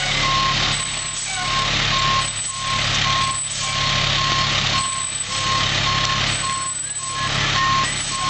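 Fire truck reversing: its back-up alarm beeps evenly at one pitch, over the steady low hum of the idling engine.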